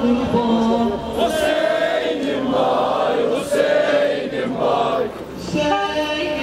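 A marching crowd of mourners chanting an Ashura lament together, many voices rising and falling in unison, with a brief drop a little after five seconds.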